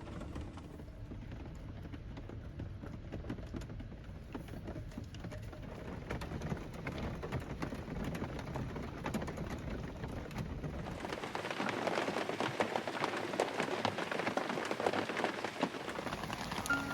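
Rain falling, with many small drops striking a surface; about eleven seconds in the sound grows louder and denser.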